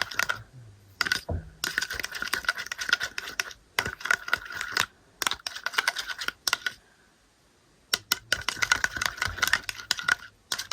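Hand soap slime being stirred and worked in a container: quick runs of small, sticky clicks and pops, with a pause of about a second a little past the middle.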